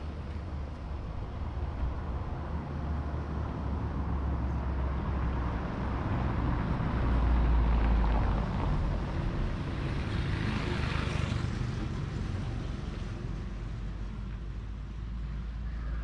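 Motor vehicle going by on a cobbled street, its low rumble building to a peak about halfway through, then a tyre hiss that fades away.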